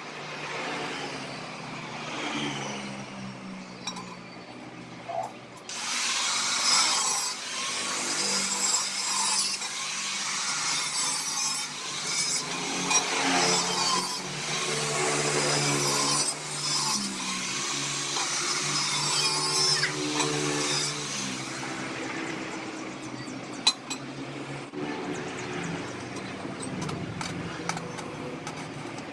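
Power tool working sheet metal: a harsh hissing grind from about six seconds in until about twenty-one seconds, over a steady low motor hum, with scattered clicks.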